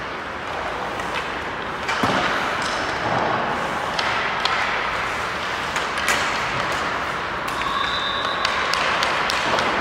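Ice hockey practice on a rink: a steady hiss of skates on ice, broken by scattered sharp clacks of sticks striking pucks and pucks hitting the boards.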